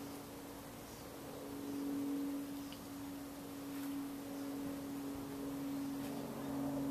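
CEC 48-inch four-metal-blade ceiling fan running, its motor giving a steady hum that swells and fades every couple of seconds. A few faint ticks sound over the hum.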